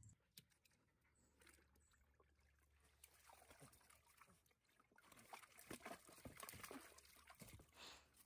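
An Australian cattle dog puppy splashing and sloshing about in a shallow plastic tub of water, in an irregular patter of small splashes that grows busier and louder in the second half.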